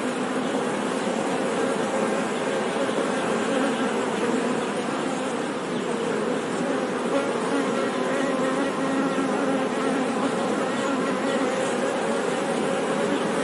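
Honey bees buzzing, a steady dense hum of many overlapping wingbeat tones.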